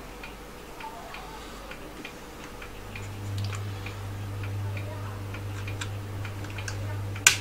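Light, irregular clicks and ticks of small metal parts being handled in an opened Commodore 1571 floppy drive's mechanism, with one sharp click near the end. A low steady hum comes in a few seconds in.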